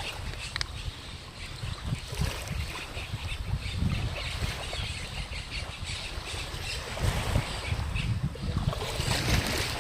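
Outdoor nature sound: wind buffeting the microphone in uneven gusts, with many short bird chirps.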